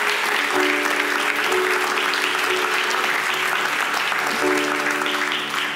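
Audience applauding, with a few steady held instrumental notes from the ghazal accompaniment underneath. The applause starts to fade right at the end.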